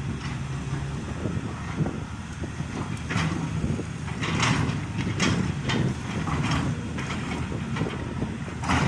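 Hydraulic excavator's diesel engine running steadily under working load, with short, sharper noises roughly every second as the machine digs.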